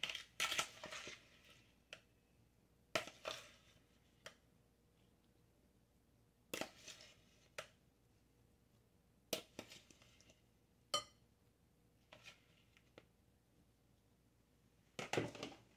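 A metal spoon scooping sugared strawberries out of a mixing bowl and dropping them into a glass trifle bowl: scattered soft scrapes, wet plops and light clinks of the spoon on the bowls, with quiet gaps between.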